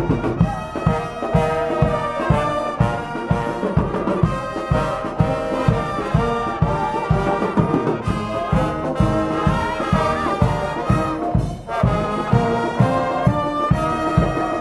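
Dutch dweilorkest (street brass band) playing: trumpets and trombones over a steady bass-drum beat.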